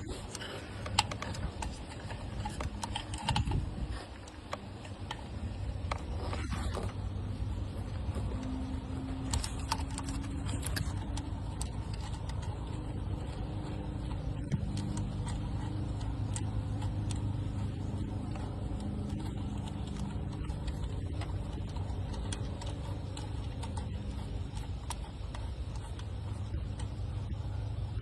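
Scattered metallic clicks and taps of hand tools and parts being handled during pulley work, over a steady low hum.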